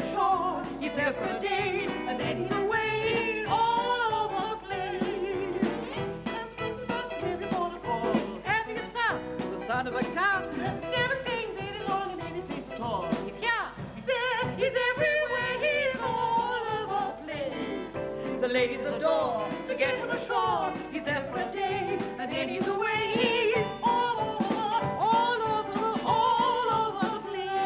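Two voices singing a comic song together in a warbling, operatic style with wide vibrato, backed by a band (keyboards, guitar, bass and drums).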